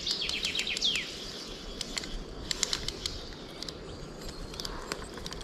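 A small bird chirping: a quick run of high notes ending in a falling whistle about a second in, followed by scattered short clicks.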